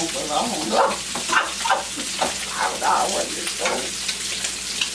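Food frying in a skillet with a steady sizzle, stirred and turned with a spatula in repeated strokes, about three a second.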